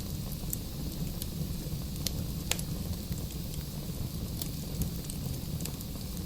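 Wood fire burning in a fireplace: a steady low rumble of flames with scattered sharp crackles and pops from the logs, the loudest about two and a half seconds in.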